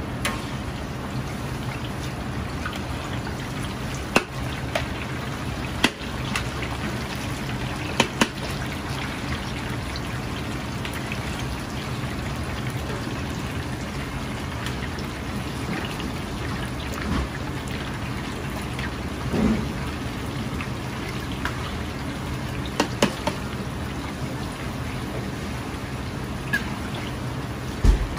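Chicken pieces in egg and starch batter deep-frying in a large wok of hot oil: a steady, crackling sizzle of bubbling oil, with a few sharp clicks.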